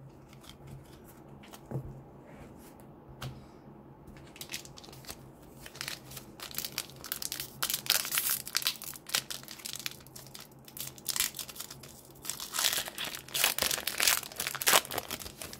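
Foil wrapper of a trading-card pack crinkling and tearing as it is worked open by hand: a few scattered crackles at first, then denser, louder crinkling from about five seconds in.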